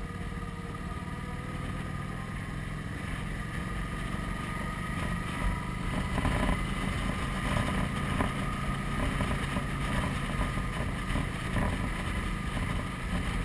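Motorcycle running at road speed, with tyres humming over a steel grate bridge deck and wind on the microphone; it gets louder about five seconds in.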